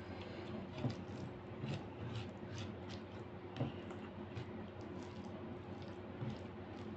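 Fingers mixing and squeezing rice with dal on a plate: soft wet squishes and small irregular clicks.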